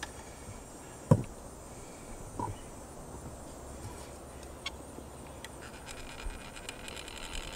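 Caulking gun and metal flue-pipe cap being handled while sealant is applied: a sharp knock about a second in, then a few faint clicks over a low, steady background.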